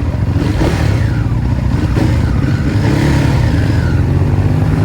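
Ducati Hypermotard motorcycle engine running under way, its pitch shifting up and down a little with the throttle.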